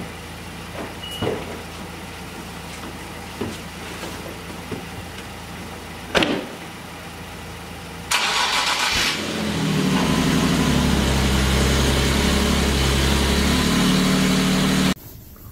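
Nissan 370Z's 3.7-litre V6 started after sitting unused for a while: it catches suddenly about eight seconds in, then runs at a steady, loud idle. A single sharp thump comes shortly before the start.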